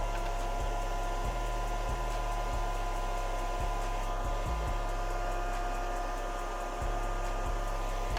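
Young Nails nail dust collector's suction fan running steadily, a whir of moving air with a steady high whine.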